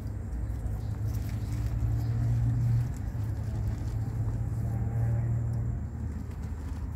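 A low, steady engine hum, swelling through the middle and easing off near the end.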